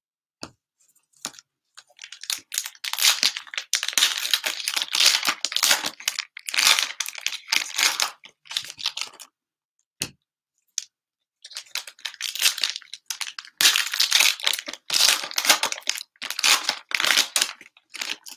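Plastic wrappers of trading card packs crinkling and tearing as they are opened by hand, in two long spells of crackling with a short pause and a single click between them.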